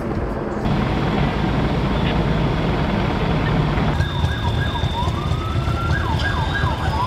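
Emergency vehicle siren in a fast yelp, sweeping up and down over and over above street noise, coming in about four seconds in after a stretch of low rumbling noise.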